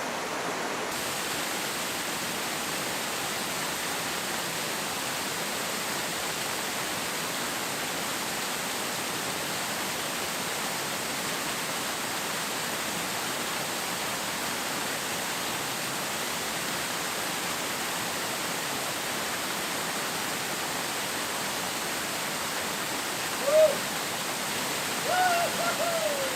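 Steady, even rushing of rain. A short call sounds about 23 seconds in, and another with a falling pitch comes near the end.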